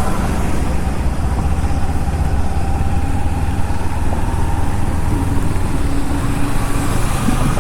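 Kawasaki Ninja motorcycle ridden in heavy rain: steady wind noise rushing over the rider's microphone, with the engine and wet road noise underneath.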